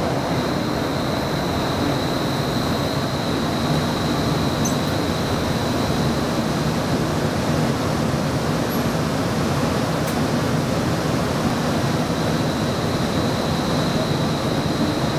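Steady running noise inside a moving streetcar, an Inekon Trio low-floor tram, with a faint high steady whine over it. Two light ticks come about five and ten seconds in.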